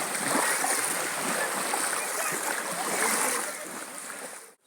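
Sea water splashing and rushing, with voices mixed in; the sound cuts off suddenly near the end.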